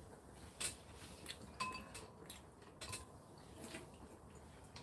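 Metal spoons clinking and tapping against ceramic bowls during eating: several light, separate clinks, a few with a short ring.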